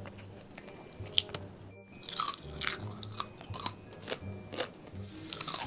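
Close-miked chewing and biting of crunchy food, a run of sharp crunches that come thick and fast from about two seconds in, over background music.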